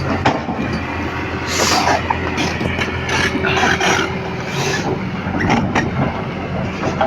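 Heavy diesel engine of a Kobelco excavator running steadily at a low drone, with intermittent hissing and scattered metallic clicks and knocks.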